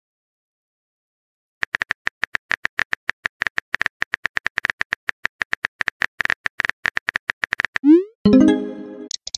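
Simulated keyboard typing sounds from a texting-story app: a fast run of short, even tapping clicks lasting about six seconds, then a quick rising swoosh and a short chime as the message is sent near the end.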